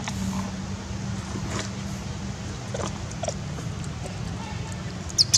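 A steady low hum in the background, then near the end a short, sharp, high-pitched squeak from an infant long-tailed macaque.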